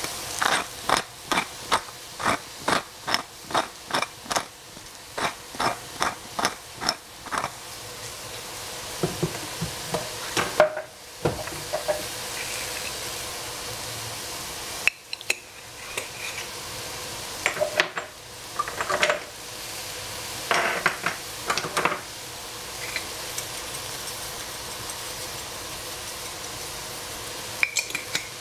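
Stir-frying in a pan: a cooking utensil strikes and scrapes the pan in fast, evenly spaced strokes, about two or three a second, for the first several seconds. The food keeps sizzling steadily after that, with occasional clinks of the utensil against the pan.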